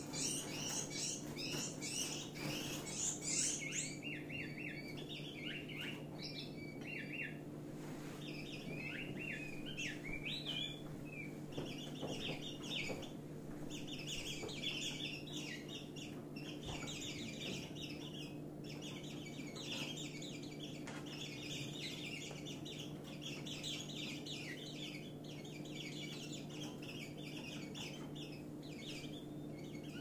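African yellow white-eyes calling in rapid runs of short, high chirps as two birds squabble through the bars of their cages. The calls are densest in the first few seconds, thin out around the middle, then pick up again.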